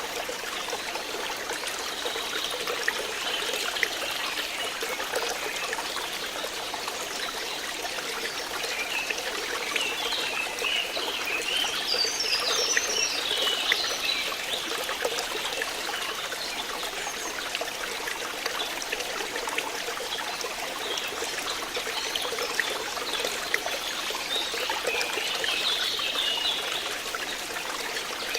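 Water running and trickling steadily, like a small stream. High chirping comes and goes over it, at the start, around the middle and near the end.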